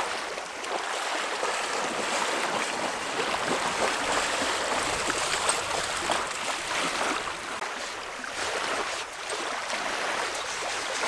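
Small waves lapping and washing steadily onto a sandy lakeshore, with a dog wading and splashing in the shallows.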